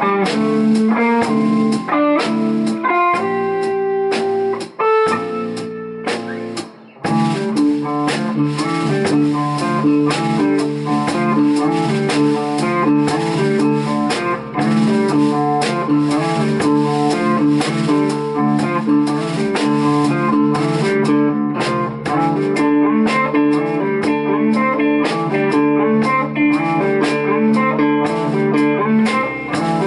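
Live instrumental rock band: two electric guitars, electric bass and drum kit. For the first seven seconds or so, guitar phrases are played with short gaps; then the whole band comes in with a dense, steady groove.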